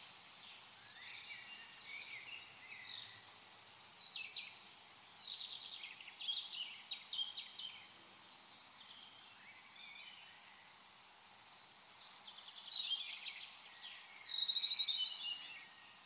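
Songbird singing in rapid chirping phrases, in two bouts with a pause between them, over a faint steady background hiss.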